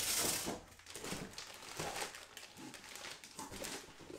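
Plastic wrap crinkling and rustling around a new radiator as it is lifted out of its cardboard box and handled, loudest in the first half second.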